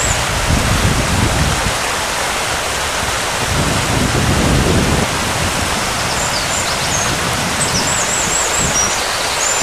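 Wind buffeting the microphone over a steady rush of sea surf, with two low gusts in the first half. Faint high chirps of birds come in near the end.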